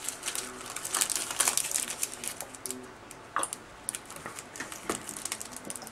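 Clear plastic bag crinkling and crackling as it is handled and opened, a run of small irregular clicks and rustles.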